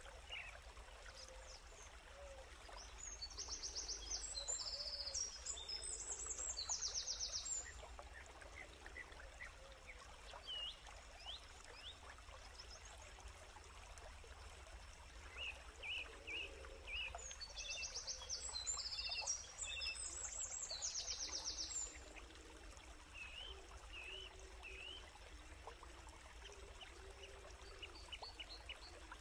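Forest birdsong: scattered short chirps and, twice, a high fast trill lasting about four seconds, the loudest sound here.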